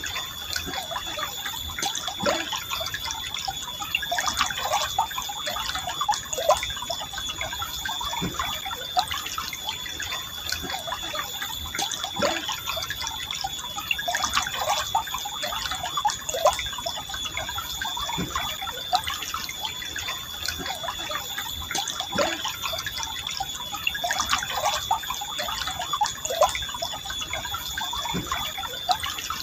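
Forest stream flowing gently, with many small bubbling plinks and splashes over a steady rush of water. A thin, steady high tone runs underneath.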